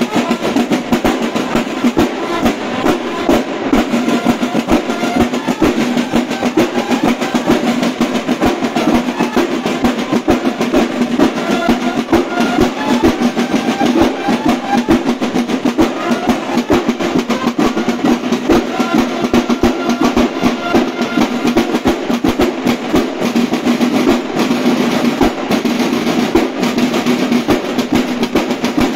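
Snare drums of a banda de guerra, many drummers playing together in a fast, continuous cadence of rolls and strokes.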